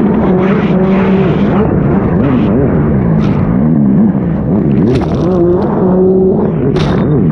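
Sea-Doo race jet ski's Rotax four-stroke engine running hard, its pitch holding steady at times and elsewhere dipping and rising again and again as the ski crosses choppy waves, under the hiss and splash of spray and water.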